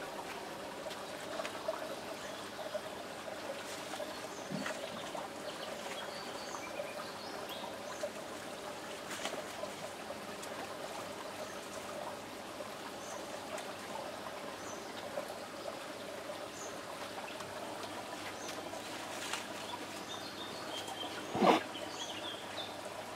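Steady outdoor background hiss with faint, scattered bird chirps and a few small clicks. Near the end comes one short, sharp, loud sound.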